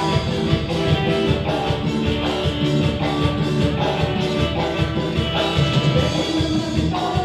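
Latin dance music played by a live band at high volume, with guitar, keyboard and a steady beat.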